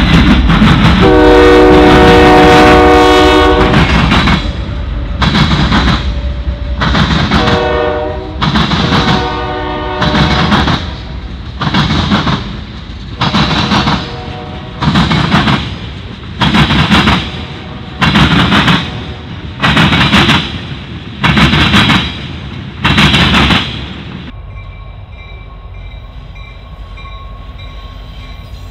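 Union Pacific diesel freight locomotive's air horn sounding a long chord, then shorter blasts, as the train passes. The freight cars then roll by with a regular heavy wheel clatter about every second and a half, until the sound drops suddenly to a faint steady background near the end.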